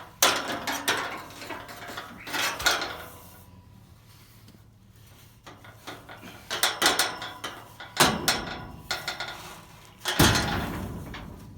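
Metal clanking and rattling from the steel gates and livestock trailer as cattle are worked into it. It comes in three clusters of sharp knocks and rattles that ring on, with quieter gaps between them.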